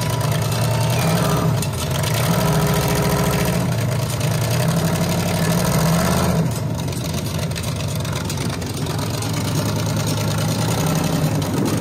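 Chrysler 440 big-block V8 in a Model A rat rod running at low speed as the car creeps up ramps onto a trailer. The engine note is stronger for a few seconds, then eases back about six and a half seconds in.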